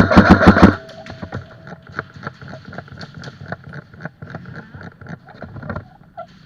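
Airsoft electric gun firing a rapid full-auto burst, lasting about a second and ending near the start, followed by fainter irregular clicks and rustling.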